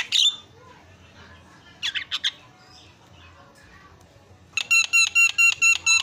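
Javan myna (jalak kebo) calling: three quick sharp notes about two seconds in, then a fast run of about seven sharp, repeated notes, some five a second, near the end.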